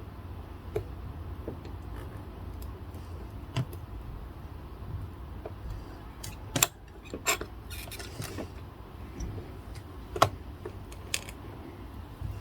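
Scattered light clicks and taps over a low steady hum, with a sharper knock about six and a half seconds in and another about ten seconds in.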